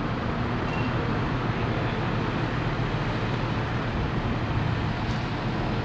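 Steady city traffic noise: a continuous rumble of road traffic with a low hum, unchanging throughout.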